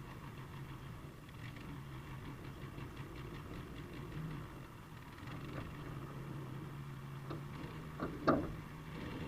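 An engine idling with a steady low hum, and one brief sharp knock a little after eight seconds in.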